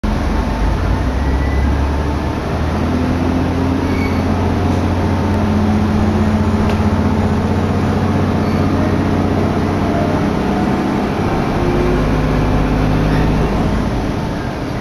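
Diesel railcar running along the line, heard from inside the car: a steady low engine drone whose held tones shift in pitch about ten seconds in, under a constant rush of air and rolling noise from the wheels.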